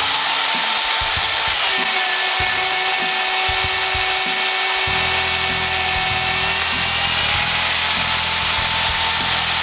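BDS AUTOMAB 350 magnetic drill running a 1/2-inch annular cutter through a hole. Its steady motor whine drops in pitch about two seconds in while cutting and rises again about seven seconds in. A low grinding rumble joins about five seconds in.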